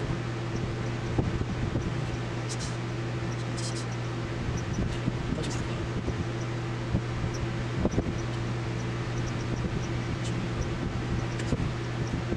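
Steady hum of an electric fan, with a handful of small scattered clicks from plastic calculator keys being handled and set into place.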